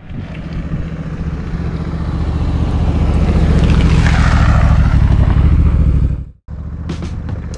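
Honda Africa Twin's parallel-twin engine as the motorcycle rides up and passes close by. It grows louder to a peak with a falling pitch as it goes past, then cuts off suddenly about six seconds in.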